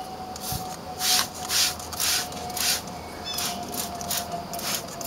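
Hand trigger spray bottle squirting degreaser onto an engine: a run of short hissing sprays, about two a second.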